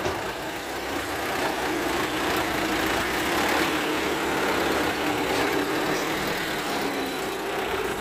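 A loaded light dump truck's diesel engine runs as the truck drives slowly past at low revs. It gets louder as the truck comes closest, around the middle, and eases off a little near the end.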